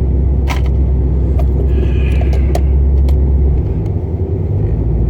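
A steady low rumble with a few sharp clicks and knocks over it; the rumble changes and eases about three and a half seconds in.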